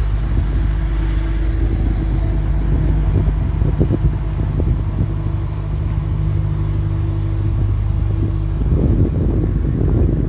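Motor vehicle engine running steadily with a low hum and road noise, as from a car on the move.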